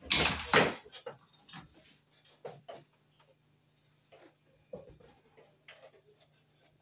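Plastic washing-machine drain-pump filter and hose parts being handled on a desk: a loud rustling scrape at the start, then scattered small clicks and taps.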